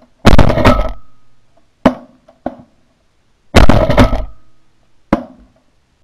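Shotgun shots at flying pigeons: two loud blasts about three seconds apart, about a quarter second and three and a half seconds in, each with a ringing tail, and three shorter, quieter sharp cracks between and after them.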